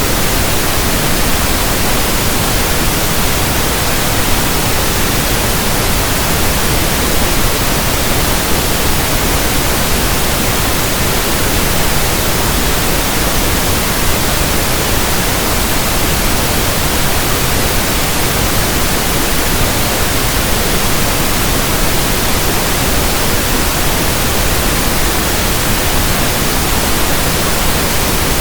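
Steady synthetic pink noise: an even, unbroken hiss spread from low to high pitches, with no change in level.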